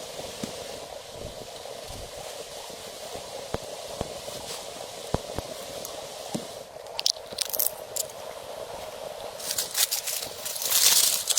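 Steady rushing background noise with a few soft knocks; in the last few seconds, crackling and rustling sounds build up and grow louder.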